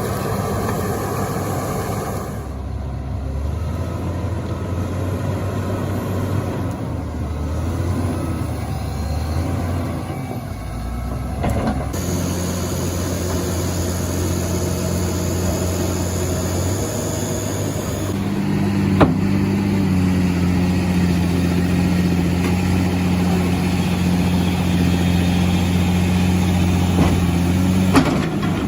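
Heavy machine engines running, the sound changing abruptly about twelve seconds in and again a few seconds later before settling into a steady engine hum. Two sharp clicks come in the later part.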